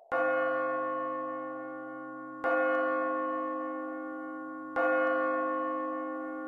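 A church bell struck three times, roughly two and a half seconds apart, each strike ringing on and slowly fading into the next.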